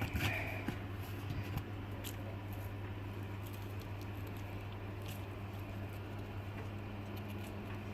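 Sawdust sprinkled by hand over wax in a cardboard egg box, making faint pattering and scratching, over a steady low hum.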